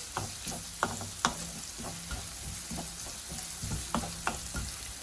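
Chopped onions, ginger and garlic sizzling in hot sunflower oil in a pan, with a steady hiss, while a spoon or spatula stirs them, scraping and knocking against the pan at irregular moments.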